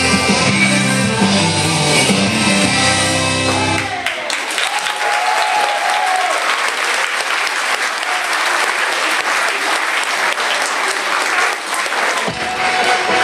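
Line-dance music with guitar stops abruptly about four seconds in, and a crowd applauds. Music starts up again near the end.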